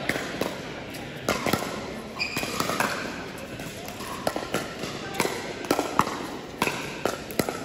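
Pickleball paddles hitting a hard plastic pickleball during a rally, a string of sharp pops at irregular intervals with a short echo from the hall, and faint voices behind.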